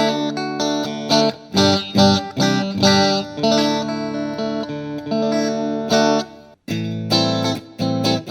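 Main Street Stratocaster-copy electric guitar played clean in the second (bridge-and-middle) pickup position through a Vox VT20X amp on its Deluxe Clean setting: struck chords and picked notes, stopping briefly about six and a half seconds in before carrying on.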